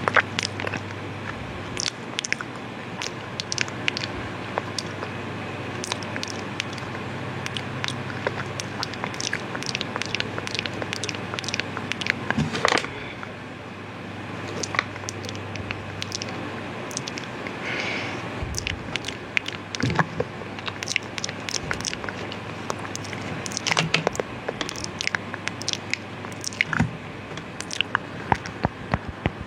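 Close-miked ASMR mouth sounds: irregular wet clicks and smacks of lips and tongue, coming in quick clusters.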